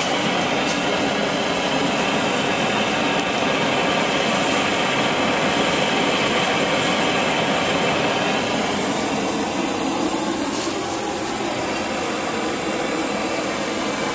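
A homemade propane forge burner built from brass pipe fittings, burning with a steady rushing noise. The burner is running well with a clean blue flame.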